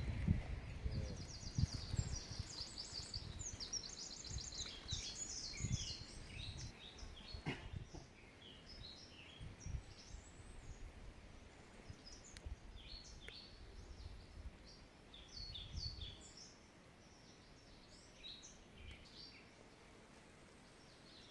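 Several small songbirds chirping and trilling in woodland, in quick high runs of notes that thin out toward the end. Low thumps and rumble fill the first half and return briefly later, with one sharp click about seven seconds in.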